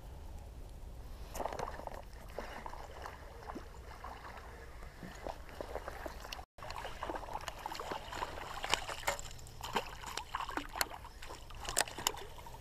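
Quiet handling of a casting rod and baitcasting reel: scattered small clicks and rustles, busiest in the second half, with faint water sounds and a brief dropout about halfway.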